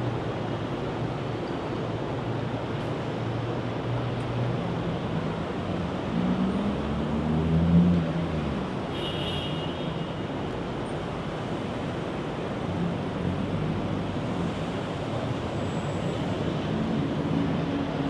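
Busy city street traffic: a steady wash of road noise and running engines, with one vehicle passing close, loudest about eight seconds in. A brief high-pitched tone sounds about nine seconds in.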